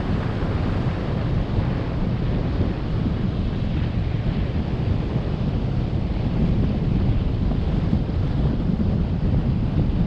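Steady wind buffeting the microphone, with ocean surf washing underneath.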